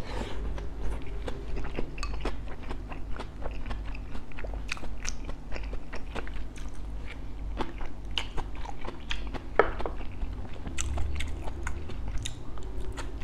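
Close-up chewing and biting of bánh khọt, crispy fried Vietnamese mini rice cakes with a meat filling, with many short, irregular crunches of the fried crust.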